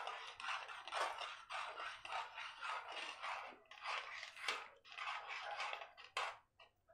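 Metal spoon stirring thick tomato gravy in a metal kadhai, scraping and swishing against the pan in a string of quick strokes, then stopping near the end.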